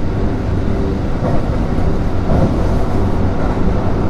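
Kintetsu 3200 series electric train running at speed, heard from inside the car: a steady rumble of wheels on rail with a low hum.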